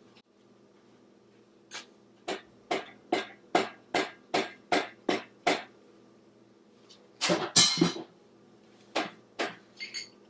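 Hand ratchet wrench being worked in quick strokes on an engine fastener, about ten short ratcheting clicks at a steady pace of two or three a second. Near the end comes a louder, longer metallic rattle, then a few more clicks.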